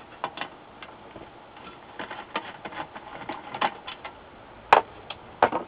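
Irregular light clicks and taps of a hand screwdriver and screws against the metal chassis and circuit board of an LCD monitor as the screws are backed out, with two sharper clicks near the end.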